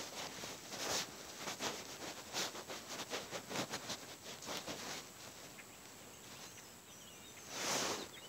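Bare feet stepping through dry, matted grass: soft rustling crunches roughly every half second, quieter after about five seconds, with a louder, longer rustle near the end. Faint high bird chirps are in the background.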